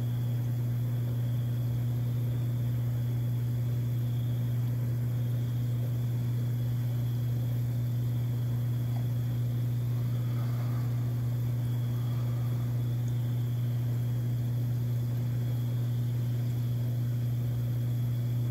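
A steady low hum with a constant hiss above it.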